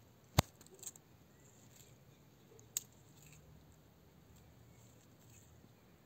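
Tortoise biting into a strawberry: a few short sharp clicks of its beak, the loudest about half a second in and another near three seconds, over a faint steady background.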